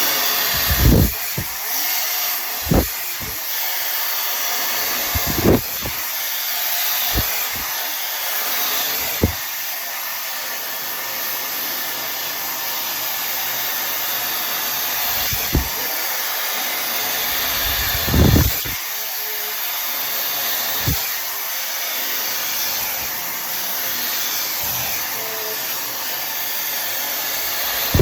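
Tymo Air Hype blow dryer running with a steady airflow hiss as it is combed through hair, broken by a few short low thumps.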